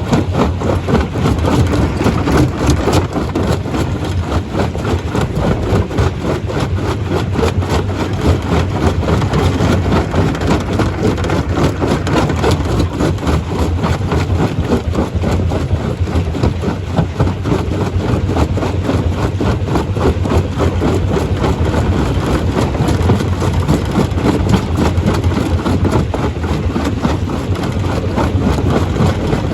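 Stone crusher running steadily under load, a constant low machine drone with a dense, continuous clatter of rock being broken and tumbling through it.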